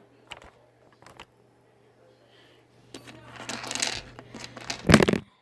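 Small magnetic metal balls clicking against each other: a couple of single clicks, then a rattling clatter about three seconds in and a louder clatter near the end.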